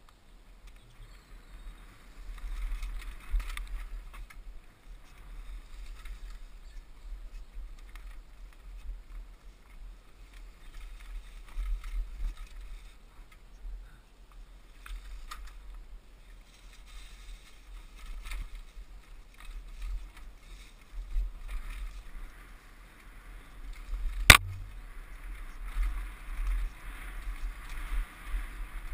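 Mountain bike ridden over a dirt woodland trail: knobbly tyres rolling on dirt and leaves and the bike rattling over bumps, under a constant low rumble of wind on the microphone. One sharp knock late on.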